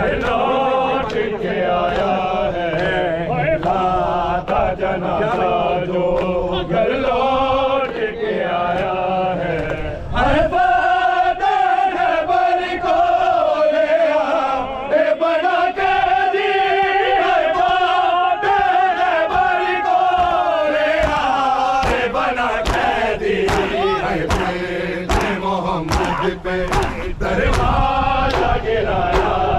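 Men chanting an Urdu noha (mourning lament) together, with long held, wavering notes. Through the second half, sharp rhythmic slaps of hands on chests (matam) keep time with the chant.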